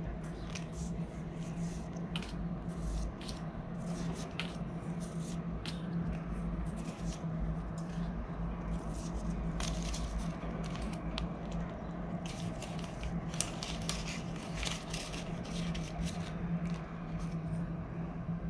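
Hands handling and counting polymer banknotes and a clear plastic binder pouch: irregular crinkles, flicks and clicks of the notes and plastic, over a steady low hum.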